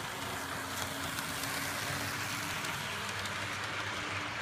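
HO scale model train running on its track: a steady whir of the locomotive's motor and wheels with a faint hum.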